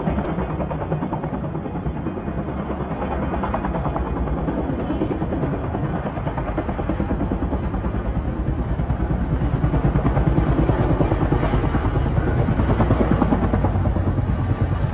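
Chinook tandem-rotor helicopter flying overhead, its rotors beating in a fast, steady chop that grows a little louder partway through.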